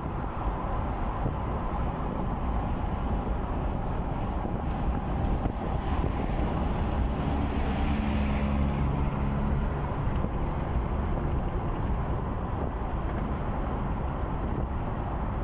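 Road and engine noise from inside a moving vehicle at highway speed, with wind buffeting the microphone. A deeper droning hum stands out for a few seconds around the middle.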